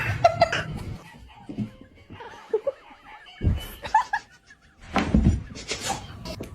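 A person laughing in short bursts with pauses between them.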